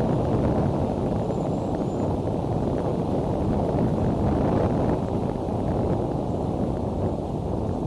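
Steady wind rumbling and buffeting on the outdoor nest-cam microphone, a deep even rush of noise.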